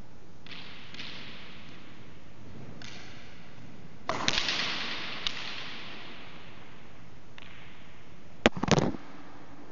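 Racquets ball struck hard with a racquet: a loud crack about four seconds in that rings on in the echoing court, a single sharp knock about a second later, then another sharp crack and a quick clatter of knocks near the end.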